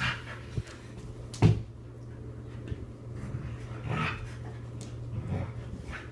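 Two Samoyeds play-wrestling on the floor, with faint dog vocal sounds. A single sharp thump about one and a half seconds in is the loudest sound.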